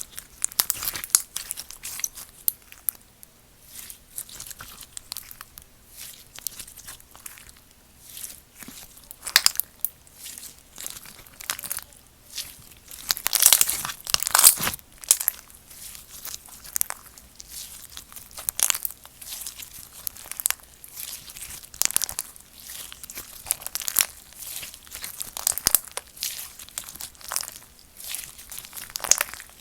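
Slime being squeezed, folded and stretched by hand, giving irregular crackles and pops, loudest about halfway through.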